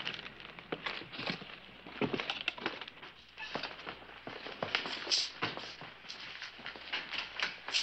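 Boot footsteps on wooden floorboards, irregular knocks and scuffs as two men walk into a room through an open door.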